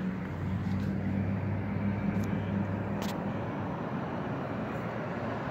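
Street traffic: a motor vehicle's engine hum over a steady road rumble, fading out about three and a half seconds in.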